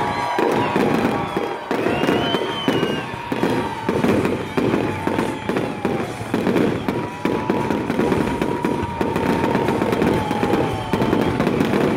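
Fireworks display with many shells bursting in quick succession: a continuous, uneven run of bangs and crackles.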